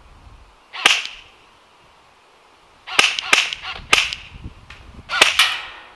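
G&G Firehawk electric airsoft rifle firing about six single shots: one about a second in, then several in quick succession from about three seconds on.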